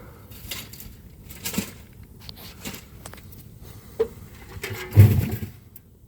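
Fire burning inside a gutted microwave, with irregular crackles and pops over a low rumble and a heavier thump about five seconds in.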